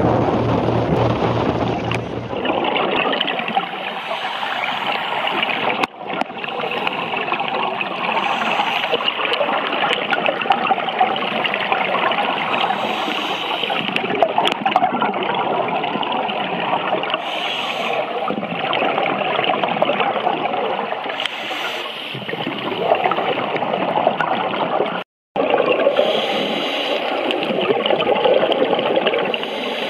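Underwater, the continuous bubbling and gurgling of scuba divers' exhaled air venting from their regulators. At the start, for about two seconds, a boat engine hums under wind on the microphone. The sound drops out briefly twice, the second time a few seconds before the end.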